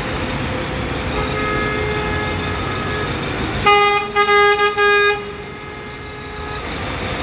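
Vehicle horn honking in congested traffic: a fainter held horn tone about a second in, then a loud horn in three quick blasts near the middle, over the steady noise of idling and moving traffic.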